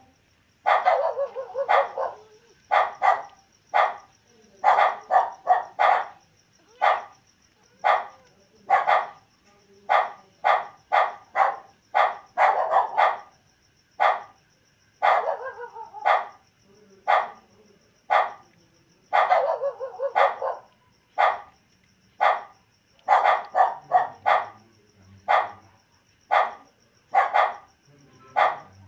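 A dog barking over and over: short barks, sometimes singly and sometimes in quick runs of two to four, about one to two a second.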